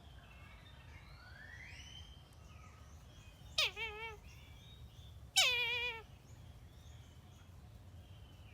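A kite calling twice, about two seconds apart. Each call starts high, slides down and wavers over half a second or so, and the second is louder and longer. Faint small birds chirp in the background.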